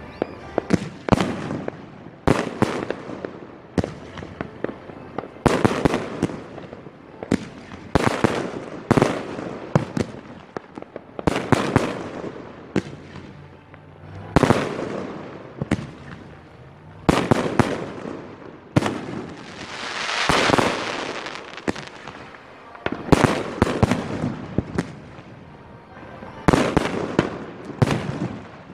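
Aerial fireworks shells bursting in the sky, a sharp boom every second or two, each trailing off. Around twenty seconds in, a longer hissing swell rises and fades among the bursts.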